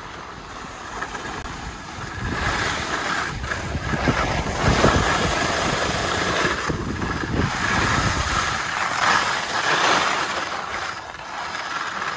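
Skis sliding and scraping over packed snow during a downhill run, with wind buffeting the microphone. The noise rises about two seconds in, then swells and eases.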